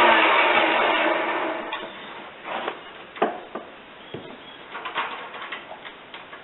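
A power tool spinning down, its whine falling in pitch and fading out over the first second and a half, followed by scattered light knocks and clicks.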